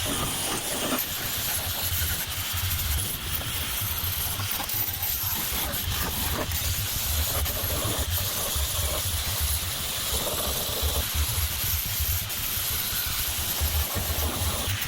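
A steady hiss over a low hum.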